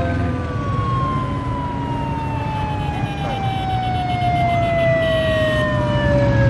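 Police escort motorcycle siren sounding one long, slowly falling wail, over the steady rumble of motorbike and car traffic.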